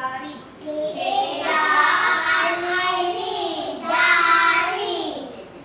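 A group of young children singing together in unison, in two long phrases with held notes.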